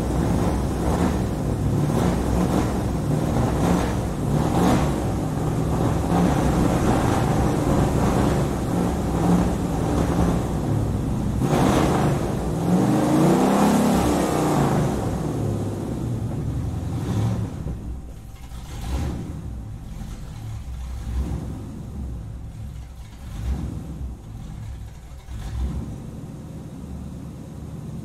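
Muscle car engine running with a low, uneven rumble, revved once about halfway through, the pitch climbing and falling back. Over the last third the engine note is quieter, with a few short swells.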